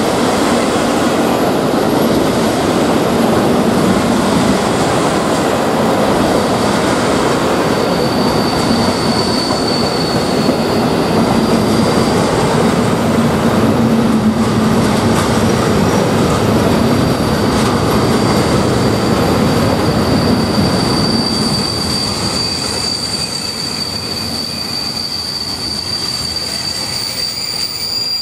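Freight train of sliding-wall covered wagons rolling past as it arrives at the station: a steady loud rumble of wheels on rails. A thin high squeal rises over it for a few seconds around eight seconds in and again from about twenty-one seconds in, as the rumble grows somewhat quieter.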